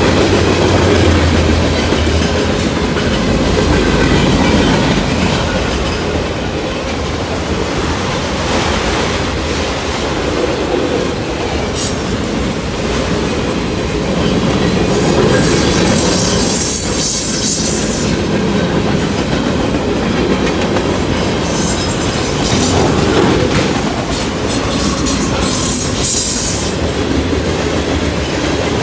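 Freight train cars (covered hoppers, tank and box cars) rolling past close by: a steady rumble with wheels clicking over the rail joints. High wheel squeal rises and fades several times, mostly in the second half.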